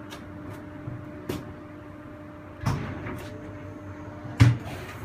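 Funicular car knocking and clunking as it pulls into its station, over a steady low hum; three clunks, the loudest near the end.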